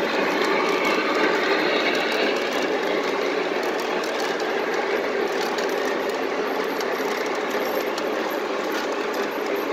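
Lionel model freight train cars rolling past on the track: a steady rattling rumble of metal wheels with faint clicks over the rail joints.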